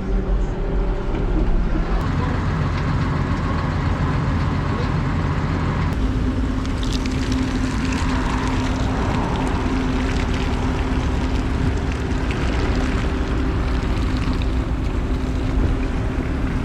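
Farm feed-milling machinery running steadily: a continuous mechanical din with an engine-like drone. It gets fuller about two seconds in, and a steady hum joins it about six seconds in.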